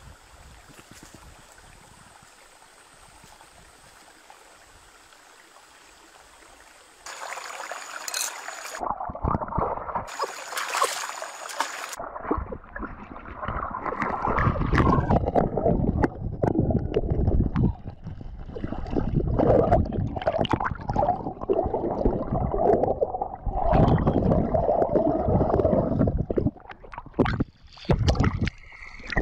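Stream water: a faint steady hiss for the first several seconds, then loud, irregular splashing, sloshing and gurgling as a person wades and feels about in the shallow water, with the microphone at and under the water surface.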